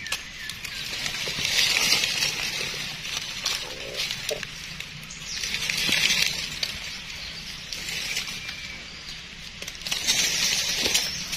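Dry forest leaf litter rustling and crackling, with scattered small crunches, swelling louder three times.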